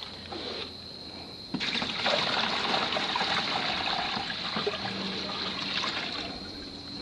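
Water poured out of a tipped plastic bucket into a plant pot. It starts about one and a half seconds in, runs for about four and a half seconds, and stops near the end.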